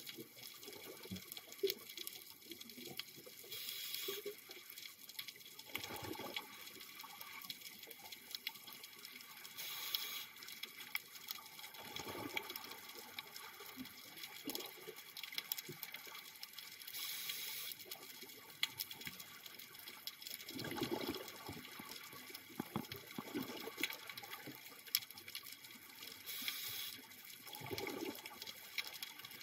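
Scuba diver breathing through a regulator underwater: four breaths, each a short hiss on the inhale followed a second or two later by a rumbling burst of exhaled bubbles, over a steady faint crackle.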